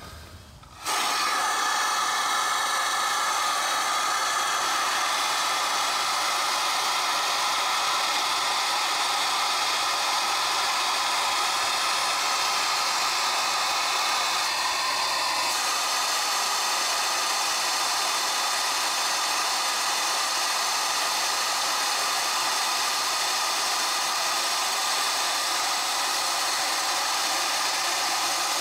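Steam blasting out of a live steam locomotive's boiler valves in jets: a loud, steady hiss that starts suddenly about a second in.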